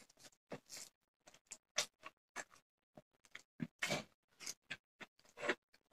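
A person eating with his hand: faint, irregular clicks of chewing and lip smacks, several a second, along with the soft sound of fingers working rice and curry on a plate.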